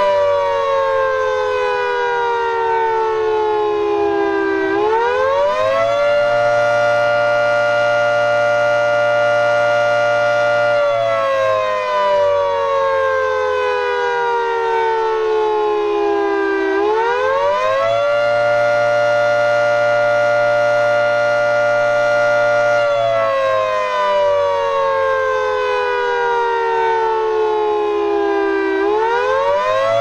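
Federal Signal (FS&S) 3T22 outdoor warning siren sounding its monthly test: a loud chord of several tones that holds high for about five seconds, slides slowly down for about six, then swoops back up in about a second, repeating twice.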